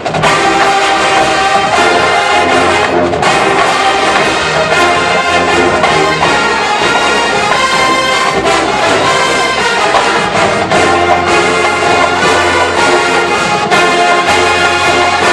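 Brass ensemble music, with trombones and trumpets playing at a steady, loud level.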